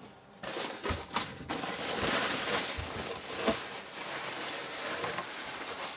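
Tissue-paper packing rustling and crinkling as it is handled and pushed aside in a cardboard box, with a few soft bumps.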